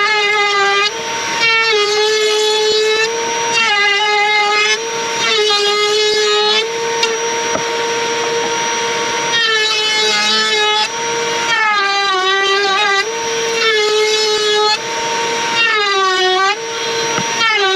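Table-mounted router running with a high, steady whine. Again and again the pitch sags a little as the teak panel is fed onto the spinning bit and the motor takes the load, then rises back as the cut ends.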